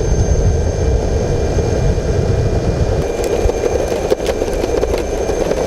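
Loud, steady wind rushing and buffeting over the microphone while riding along, a dense low rumble with no speech.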